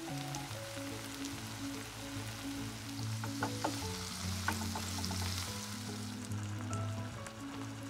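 Sliced onions and green bell peppers sizzling in oil in a non-stick frying pan, with a spatula clicking and scraping against the pan as the mixture is stirred about three to four seconds in. Background music plays along.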